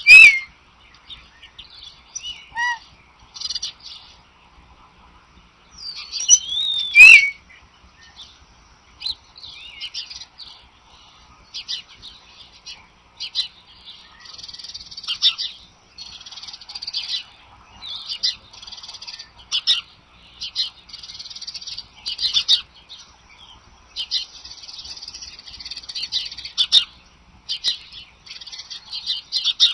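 Wild birds calling: two loud, high calls with sliding pitch, one at the very start and one about seven seconds in, over a busy run of small birds' chirps and trills that grows denser in the second half.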